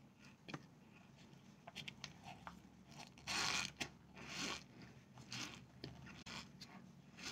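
Chewing a mouthful of cornstarch chunks: faint squeaky crunches and small crackles, with louder crunching about three and a half seconds in and again about a second later.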